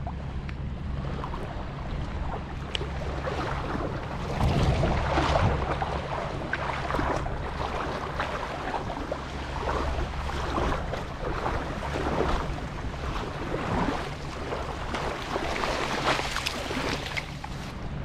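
Wind on the microphone and small waves lapping and sloshing in the shallows, over a steady low hum, swelling briefly about four to five seconds in.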